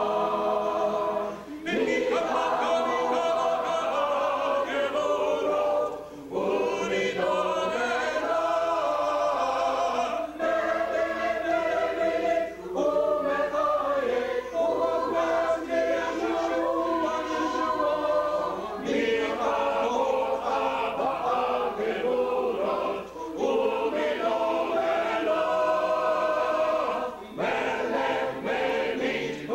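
Choir singing in rehearsal, in phrases of a few seconds broken by short breaths.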